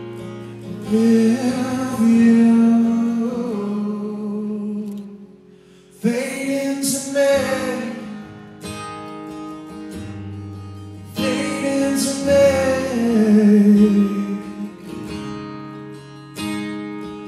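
Live acoustic ballad: a picked and strummed acoustic guitar under a male voice singing three long phrases of held, sliding notes, with a short lull in the middle.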